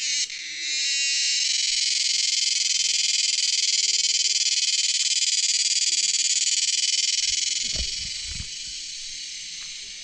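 Cicada song: a loud, continuous shrill buzz that swells in over the first second, holds steady, then fades over the last few seconds. A few low bumps come near the end.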